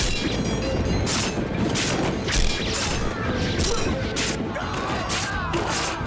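Battle-scene soundtrack of a cavalry charge: a music score under repeated sharp crashes, about one or two a second, over a low rumble of many horses galloping. Rising and falling cries come in near the end.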